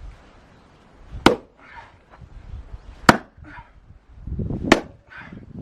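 Axe striking oak firewood logs three times, about a second and a half to two seconds apart, each a sharp crack as the blade bites into the wood.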